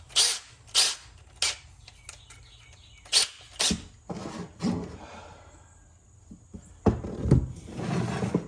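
Drill bits and tools being handled on a workbench: a string of sharp clicks and knocks, five in the first four seconds, then a longer clatter near the end.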